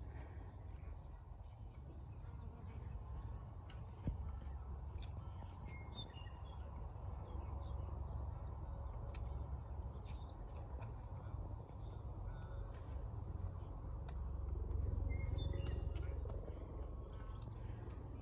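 Outdoor ambience: wind rumbling on the microphone, swelling near the end, under a steady high-pitched insect trill, with a few faint bird chirps and light clicks.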